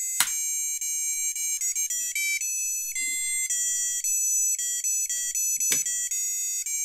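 Tiny speaker on a DIY double-heart RGB LED kit playing its built-in electronic melody: thin, beeping high notes changing quickly, like a ringtone. Two sharp clicks cut in, one just after the start and one near the end.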